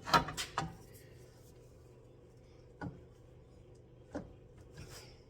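Knocks and clunks from a big pry bar levering the steering knuckle down to fit a new CV axle into the spindle. A quick cluster of sharp knocks comes right at the start, then single knocks about three, four and five seconds in.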